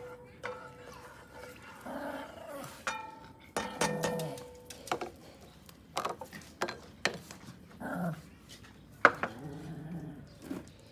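Small dog growling and barking in short bouts, with sharp knocks and clatter in between.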